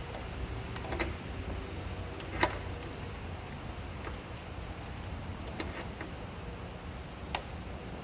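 A handful of short, sharp metallic clicks and taps from a torque wrench and socket working a nut, the loudest about two and a half seconds in, over a steady low hum.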